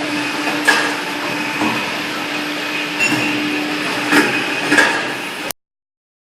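Automatic CNC hydraulic wire bending machine running with a steady hum, broken by a few sharp metallic clacks about a second in and again near the end. The sound cuts off suddenly.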